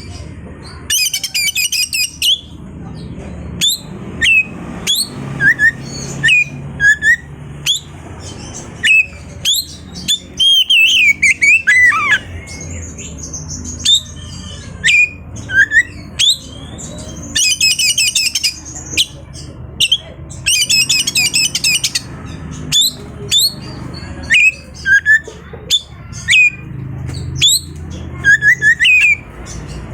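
Oriental magpie-robin (kacer) singing a varied song of short, sharp whistled notes and downward slurs. It breaks three times into dense, scratchy rattling trills: about a second in, and twice in quick succession past the middle. A low steady hum runs underneath.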